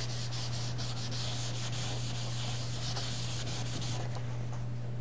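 Paper towel rubbed briskly over inked vellum cardstock, a steady dry scratching hiss, buffing to blend the ink colours; it stops about four seconds in. A steady low electrical hum runs underneath.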